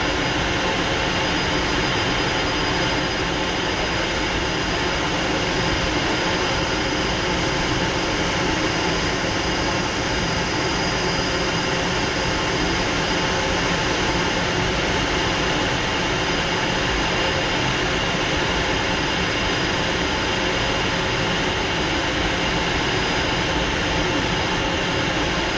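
Steady cockpit noise of a Fouga Magister in flight: its twin Turbomeca Marboré turbojets are running with a constant high whine over an even rush.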